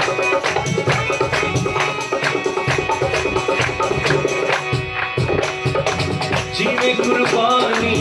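Instrumental interlude of a Punjabi devotional hymn: a harmonium holds and plays the melody over a steady beat of hand percussion, tambourine and clapping.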